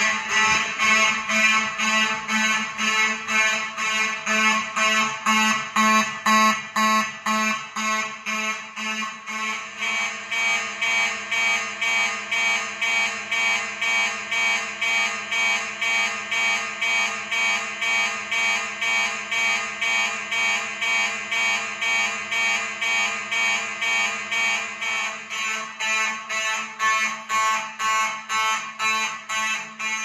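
Building fire alarm sounding in march time coding, a pitched alarm tone pulsing on and off about twice a second during a full system alarm test. The system was set to the pulsing march time pattern instead of a steady tone so residents hear it better through walls and over ambient noise.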